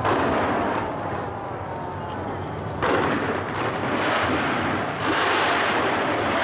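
Dense barrage of fireworks from the Taipei 101 New Year's show: a continuous rumble and crackle of many bursts, surging louder at the start, again about three seconds in, and once more about five seconds in.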